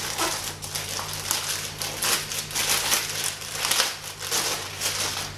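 Plastic poly mailer bag crinkling and rustling continuously as hands pull it open.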